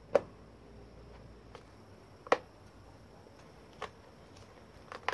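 Plastic hair dryer housing being handled and its halves pressed back together: a few sharp clicks and knocks, the loudest about two seconds in.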